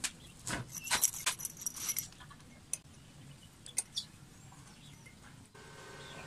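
Small cut steel pieces clinking together in a gloved hand: a quick run of clinks, some ringing, in the first two seconds, then a few single clicks. Near the end a steady hum sets in as stick welding starts on the pieces.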